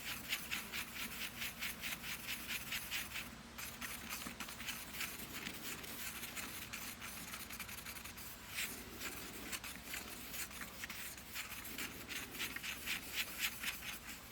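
Fiberglass pencil scrubbing back and forth over a multimeter's metal contacts to clean them, a fast scratchy rubbing at about three strokes a second. It eases off a few seconds in and picks up again near the end.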